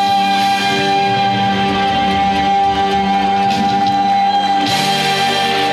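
Trot song with band accompaniment and guitar, ending on one long held high note.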